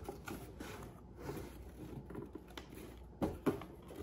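Handling noise from a cardboard shipping box as its lid and flaps are lifted and pushed: scattered soft taps and light scrapes, with one louder knock a little after three seconds in.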